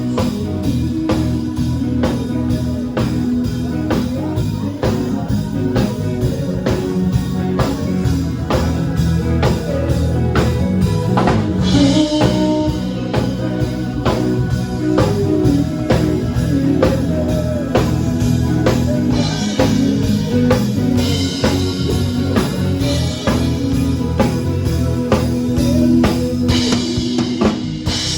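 A live band playing with a drum kit and guitar, the drums keeping a steady beat, with cymbal crashes at intervals.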